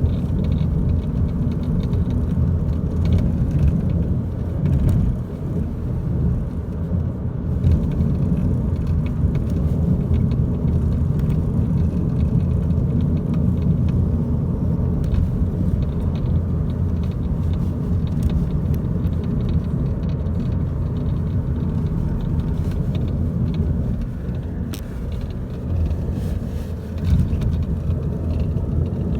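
Steady low rumble of a 2012 Volkswagen Passat TDI heard from inside the cabin, with faint irregular ticks and rattles from the dashboard, a rattle whose cause the owner does not know.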